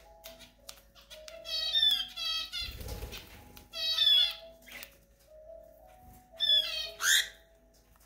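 Cockatiel squawking calls, three harsh bursts about one and a half, four and six and a half seconds in. Between them come faint quick clicks as the cockatiel cracks seed from a hand.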